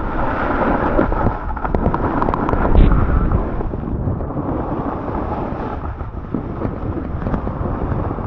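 Snowboard sliding and scraping over a groomed piste during a run, with wind buffeting the microphone. The loudest surge comes about three seconds in.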